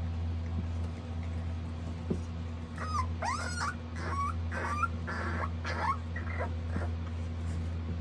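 Young puppies squabbling, giving a quick run of short whining yips and squeals that rise and fall in pitch, from about three seconds in until about seven seconds. A steady low hum runs underneath.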